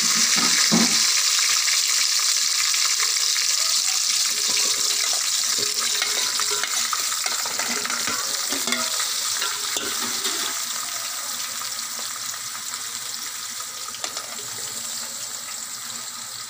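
Chopped vegetables (onion, green chillies, okra, drumstick, tomato) sizzling as they go into hot oil: a steady frying hiss that slowly fades over the whole stretch. A few knocks sound in the first second.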